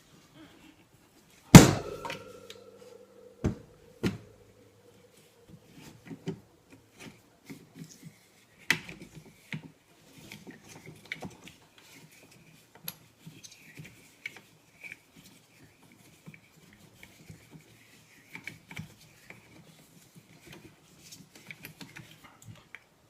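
Parts of a shotgun's collapsible recoil-reducing stock being handled and taken apart: a loud clank with a brief ringing about a second and a half in, a few more knocks, then small clicks and taps of the pieces being worked.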